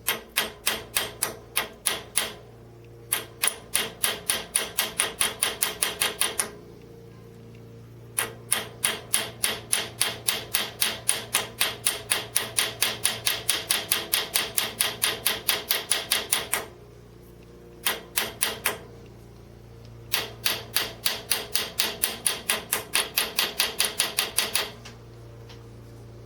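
Small hammer peening a heated nail-made rivet: runs of rapid, light, even taps at about four to five a second, broken by short pauses, with the longest run in the middle.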